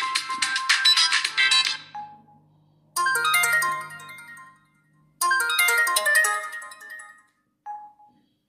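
Samsung GT-S3600 phone playing ringtones through its loudspeaker. A fast run of electronic notes stops about two seconds in. After a pause come two chiming phrases whose notes fade away, starting about three and five seconds in, then a short single tone near the end.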